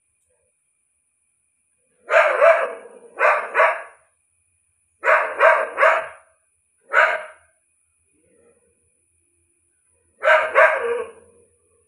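A dog barking in short clusters of two or three barks, about ten barks in all, with pauses of a few seconds between the clusters.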